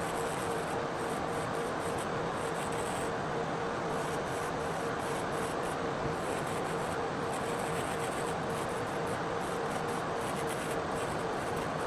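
Nail dust collector (nail vacuum) fan running steadily: an even rush of air with a steady hum.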